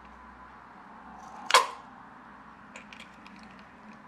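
A single sharp snap about one and a half seconds in as scissors cut open a liquid-filled rubber balloon, followed by a few faint clicks.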